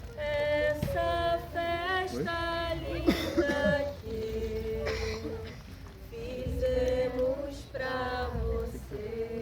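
A group of voices, women's and children's, singing a song together without instruments, in held notes of a slow melody.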